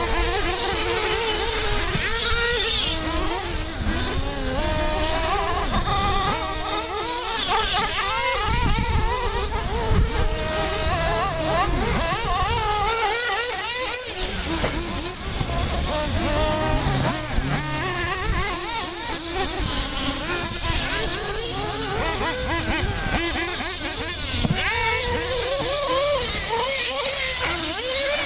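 Several nitro RC buggies' small glow-fuel engines buzzing at high pitch, overlapping and revving up and down as the cars race around the track.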